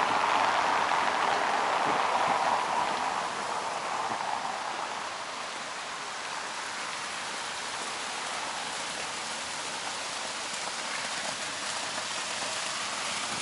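Steady rushing and splashing of fountain water, louder for the first few seconds, then settling into a softer, even hiss.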